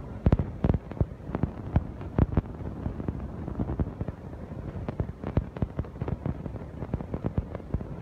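Irregular series of sharp knocks and clanks from building-site work, thickest and loudest in the first couple of seconds and then scattered.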